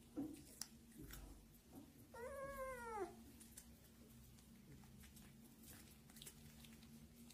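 A kitten meows once, about two seconds in: a single call of about a second that rises briefly and then falls. The rest is near silence with a few faint small clicks.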